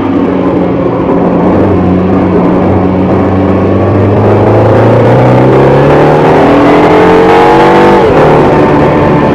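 Mini John Cooper Works GP3's 2.0-litre turbocharged four-cylinder engine under hard acceleration, heard from inside the cabin. Its pitch climbs steadily for several seconds, then drops sharply about eight seconds in.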